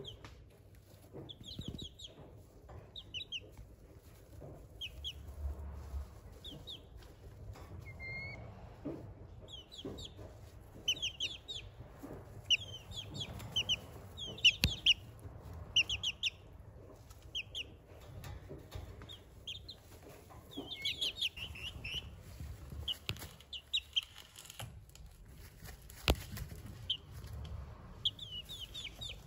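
Two-month-old Lemon Millefleur Sablepoot bantam chicks peeping in short, high calls, scattered through the whole stretch and coming in quick runs in places.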